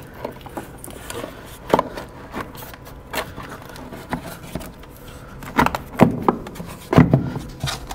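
Plastic airbox lid and intake tube being handled and fitted back into place: scraping and rubbing with scattered knocks of hard plastic, the loudest clustered about six to seven seconds in.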